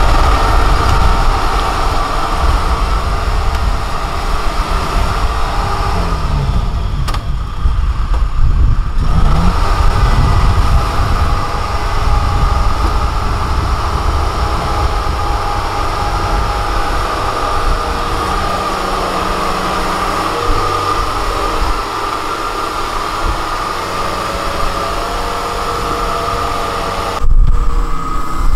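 Kubota DC-70 combine harvester running steadily, its diesel engine giving a low rumble under a constant high whine. It briefly gets louder near the end.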